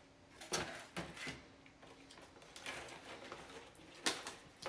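Cardboard 3D-puzzle sheets being handled and pre-punched pieces pressed out of them: a few sharp clicks and snaps, the loudest about four seconds in, with light rustling of the sheets between.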